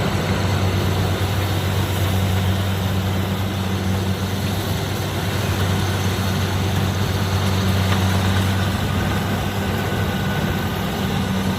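Engine of a rice-harvesting machine running steadily, a constant low hum with no changes in speed.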